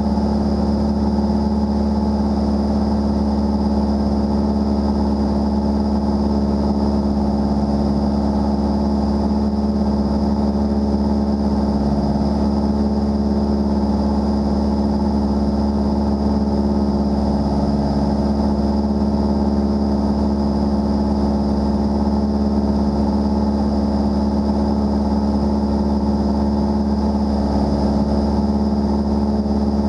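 Light single-engine aircraft's engine and propeller running at steady cruise power in level flight: a constant, loud drone with a strong low hum that does not change.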